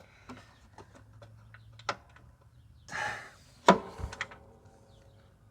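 Hand tools and metal parts on a lawn mower clicking and knocking as they are handled, with a short scrape about three seconds in and then a sharp metallic clank that rings on for about a second.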